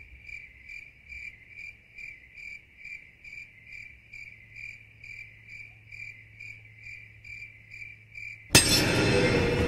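Cricket chirping sound effect used as the 'awkward silence' gag: steady short chirps, a little over two a second. Near the end it is cut off by a sudden loud burst of music.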